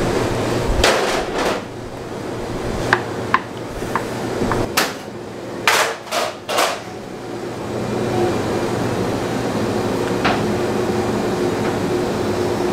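Steady machine hum of a bakery workroom, with scattered sharp knocks and clatter, most of them between about one and seven seconds in and one more near ten seconds.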